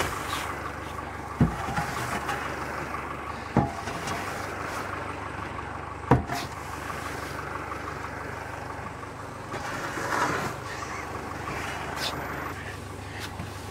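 Tractor engine idling steadily, with a steel shovel knocking sharply on the wooden wagon bed three times as hay is spread, and a brief rustle of hay near the end.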